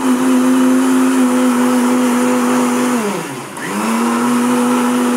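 Kitchen mixer grinder (mixie) running, churning milk cream (malai) with ice water to separate out butter for ghee. The motor gives a steady whine. About three seconds in it slows with a falling pitch, then picks up again to full speed.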